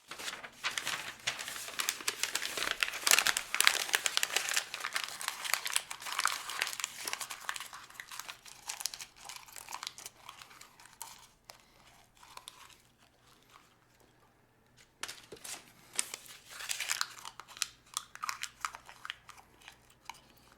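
A sheet of white printer paper being crumpled and crinkled by hand, with dense crackling. It comes in two bouts: a long one, then a pause from about 11 to 15 seconds in, then a second, shorter one.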